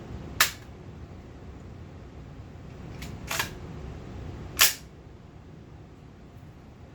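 Two shots from a .357 SIG direct-impingement carbine on a Glock-magazine lower, about four seconds apart, with a quieter double clack between them. The carbine cycles on both rounds.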